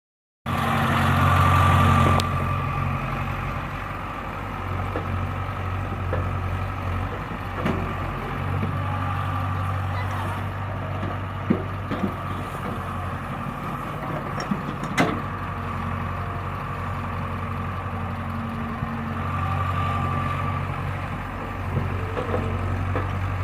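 Diesel engines of an excavator and a tractor running steadily while the excavator digs and loads, with a few sharp knocks and clanks around the middle.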